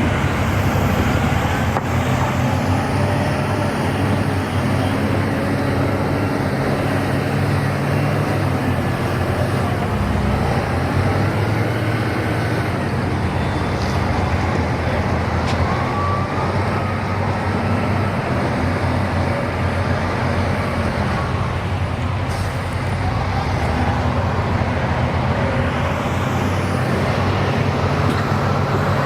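Steady road traffic noise: motor vehicles running, with a constant low engine hum.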